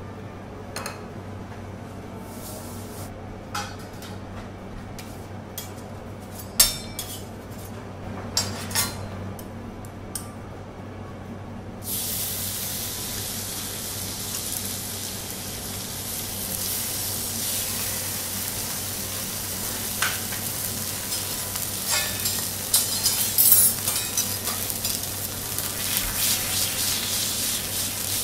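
Metal spatulas and small copper pans clinking and knocking on a steel teppanyaki griddle; about twelve seconds in, sizzling starts suddenly as thin slices of Akita beef sear on the hot plate, with spatula taps and scrapes over the sizzle.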